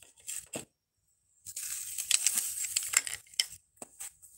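Rustling and crinkling from handling miniature fairy-garden pieces, with a few light clicks near the start and a dense stretch of crackly rustling from about a second and a half in.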